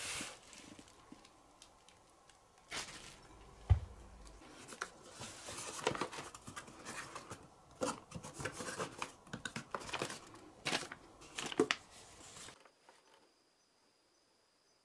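Packaging handled by hand: bubble wrap and plastic crinkling and tearing, then a cardboard box being opened and its flaps rustling, with one loud thump about four seconds in. The handling stops about twelve seconds in.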